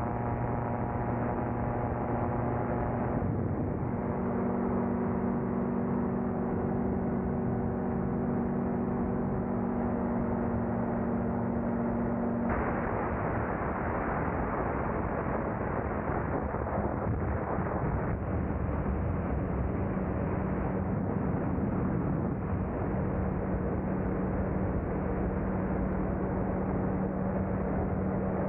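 The small engine of a powered glider drones steadily under loud rushing wind in flight. Its pitch shifts a few seconds in and again about halfway through, when the wind rush grows louder.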